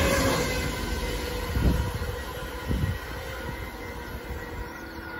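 A pair of Class 450 Desiro electric multiple units running away at speed, their rumble and steady hum fading into the distance. Two dull thumps come about one and a half and three seconds in.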